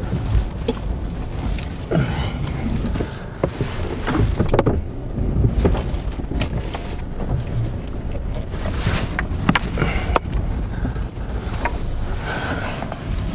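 Lexus GX 460's V8 engine pulling in reverse while the tyres churn and slip through deep snow. There is a steady low rumble with scattered knocks and thuds as snow and ice are flung against the wheel and body.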